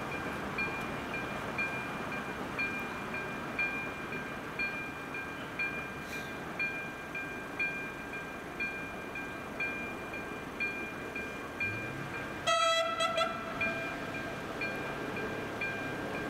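Level crossing's AŽD 97 warning electronic bell dinging in a steady rhythm. About twelve seconds in, an approaching train sounds a short horn blast, and a low engine hum rises from then on.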